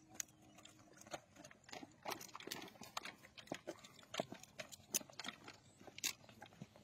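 Faint, irregular clicks and knocks, several a second, with the sharpest two about five and six seconds in.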